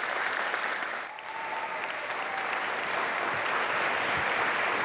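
Studio audience applauding: many people clapping together at a steady pace, with a brief dip about a second in.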